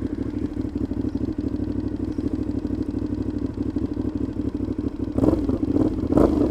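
Aprilia Shiver 750's V-twin engine running through an exhaust that sounds like a muffler delete, a steady even beat, swelling louder twice near the end. The rider puts the noise down to play in the joint between the silencer and the catalytic converter, which tightening the clamp has not cured.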